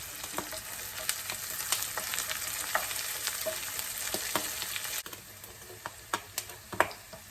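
Onion, garlic, jalapeño and dried chilies sizzling in olive oil in a pan, with a utensil clicking against the pan as they are stirred. The sizzle drops sharply about five seconds in, leaving scattered clicks and knocks.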